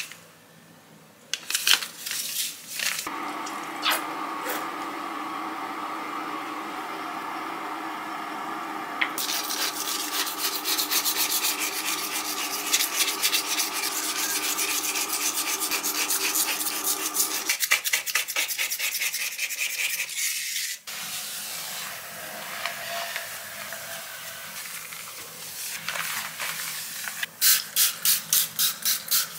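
A blade scraper pushed in quick scratchy strokes across a glass cooktop smeared with cleaning cream, over a steady hum that stops partway through. Near the end, a quick run of spray-bottle pumps.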